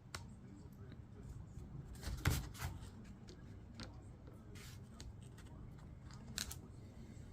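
Light clicks and knocks of small tools and parts being handled while working on a small engine's carburetor, scattered and irregular, the loudest just after two seconds in.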